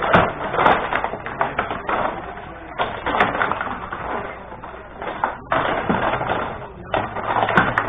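Benej rod hockey table in play: plastic players spinning and sliding on their metal rods, giving a fast, irregular clatter of clicks and knocks as the puck is passed and shot.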